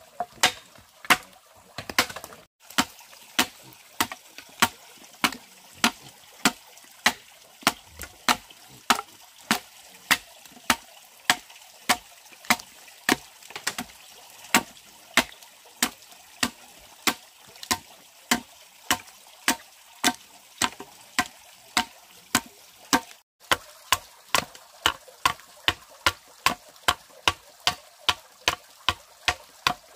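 A hand tool striking wood in a steady, even rhythm of sharp knocks, about one and a half blows a second. After a brief silent gap about two thirds of the way through, the blows quicken to about two a second.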